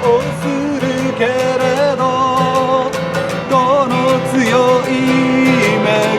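Background music in a country style, with plucked guitar and a melody that slides between notes over a steady low accompaniment.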